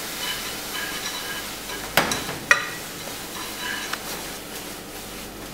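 Metal tongs turning spaghetti and beaten egg in a hot non-stick frying pan, with a steady sizzle from the pan and two sharp clicks of the tongs against the pan about two seconds in. This is the egg being tossed into the pasta off the heat to form the carbonara sauce.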